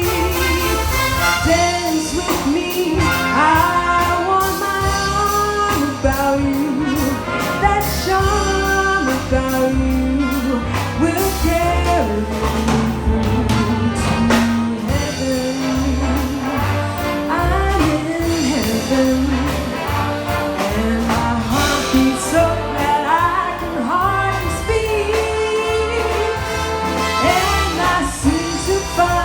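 Live big band with brass playing a swing jazz tune, with a vocalist singing over it.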